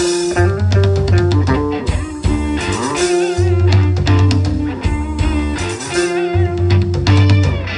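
Live rock band playing a slow groove: a repeating electric bass riff that stops and restarts, with drums and electric guitar over it.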